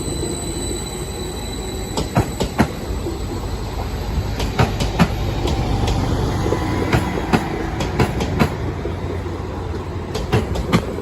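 Class 231 train moving through the station: a steady low rumble with many uneven sharp clicks of wheels passing over rail joints and points.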